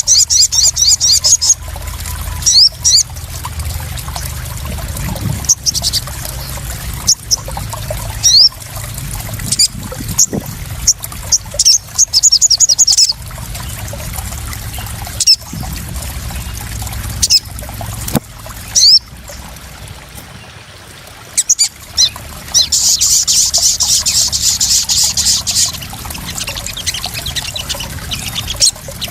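Crimson sunbird (sogon) calling over steady trickling, splashing water: scattered high chirps and short sweeps, and several fast high trills, the longest and loudest about two-thirds of the way in.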